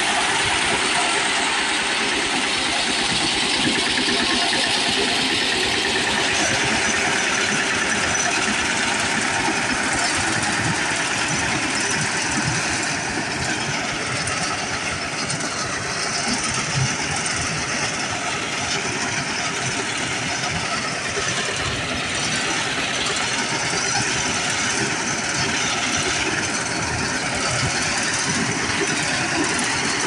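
Eicher tractor's diesel engine running steadily under load, driving a front-mounted reaper that is cutting standing wheat, with the cutter bar's clatter mixed into the engine noise.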